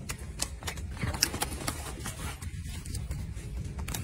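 Close handling noise: irregular light clicks, taps and rustles over a low steady rumble, as golden snub-nosed monkeys handle food and paw at the keeper's jacket right by the phone.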